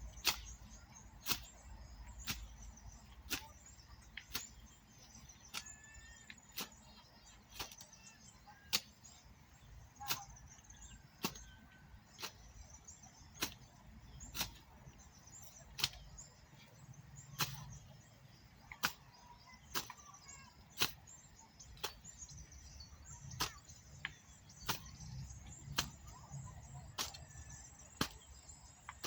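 Hand hoe striking the soil in a steady rhythm, about one stroke a second, while cultivating between cassava plants. Faint bird chirps in the background.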